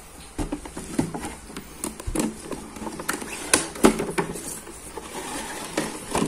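Cardboard figure box and its clear plastic window tray being handled and slid apart: irregular crinkles, scrapes and light clicks, with the sharpest snaps a little after three and a half seconds in.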